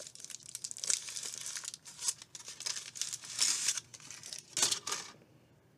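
Foil wrapper crinkling and tearing in irregular bursts as it is peeled off a large hollow chocolate egg, stopping near the end.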